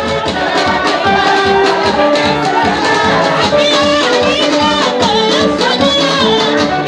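Loud praise music during a prayer service: held instrument notes over a busy, even percussion beat with a shaker rattling, and voices singing.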